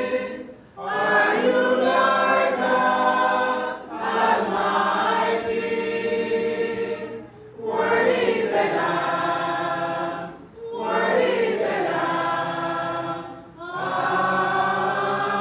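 A church choir singing a slow hymn unaccompanied, holding long chords. The phrases last about three seconds each, with short breaks for breath between them.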